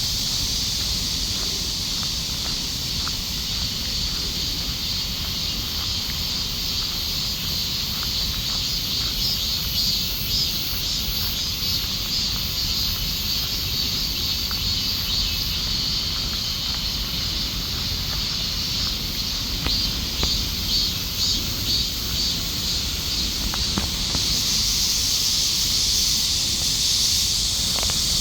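Chorus of summer cicadas singing in a steady high-pitched drone, pulsing now and then and growing louder near the end.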